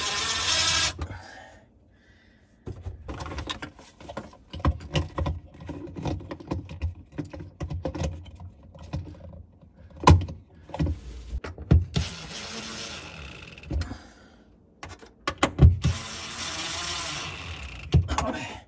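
Cordless drill-driver running in short spells, once briefly at the start and twice more later for about two seconds each, driving screws to fix the touchless faucet's sensor control box to the cabinet wall. In between there are knocks, clicks and rattles as the plastic box and braided hoses are handled.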